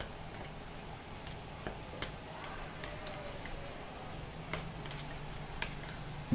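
Metal spoon stirring curd and spices in a small glass bowl: faint, scattered light ticks of the spoon against the glass, about one a second.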